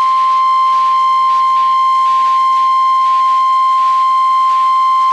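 NOAA Weather Radio 1050 Hz warning alarm tone, a single unbroken high-pitched tone over a hiss of radio static. It signals that a weather warning broadcast follows.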